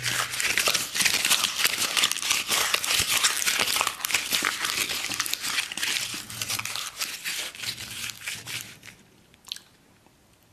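Close-up crunchy chewing, a dense run of crisp crackles that thins out and fades away over the last few seconds.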